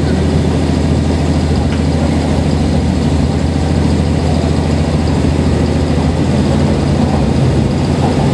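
Diesel railcar's engine running steadily under way, heard inside the passenger cabin as a constant low drone over the running noise of the train.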